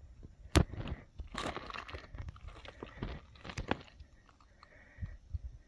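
Hiking footsteps crunching on loose rocky desert ground, uneven and irregular, with the loudest step about half a second in.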